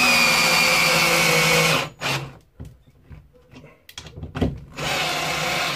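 Ryobi R18PD3 cordless drill-driver in first gear driving a 10×80 mm screw into a wooden block with a 13 mm socket: the motor runs hard under load, its pitch sinking slightly, and stops about two seconds in. After a brief blip, a few light clicks and a knock, the drill runs again briefly near the end.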